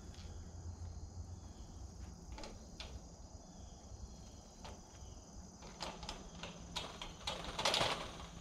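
Metal clicks and rattles of a chain-link kennel gate and its latch being worked by hand, with a louder rattling scrape as the gate moves near the end.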